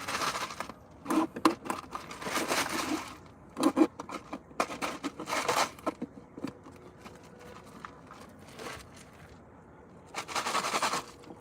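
Drinking straw slurping at the bottom of an empty fountain-drink cup, sucking air with a rasping gurgle in several short slurps, then a pause of a few seconds before one last slurp near the end.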